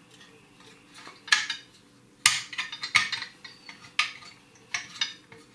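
Metal kit parts clinking and tapping as a Mamod steam car's metal chassis rails are handled and fitted to the boiler, with several sharp clinks roughly a second apart.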